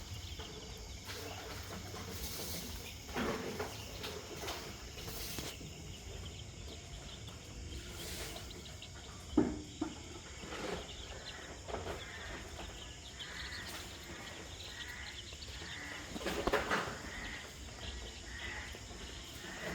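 Five-day-old chicks peeping, a run of short, repeated soft cheeps that picks up in the second half. A few sharp knocks come through, the loudest about nine seconds in, over a low steady rumble.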